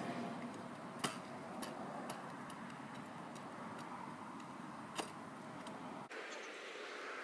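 Kick scooter on asphalt: a steady low rolling noise with a few sharp clacks from the deck and wheels striking the pavement, the loudest about a second in and another about five seconds in.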